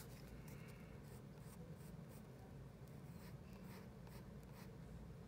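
Faint scratching of a wooden graphite pencil on paper: a series of short strokes, over a low steady room hum.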